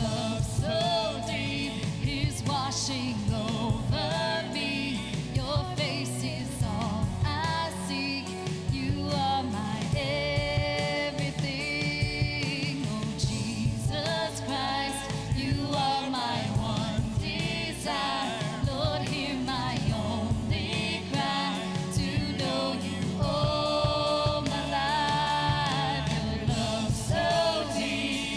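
Worship music: a group of singers, choir-like, singing over a band with a steady beat.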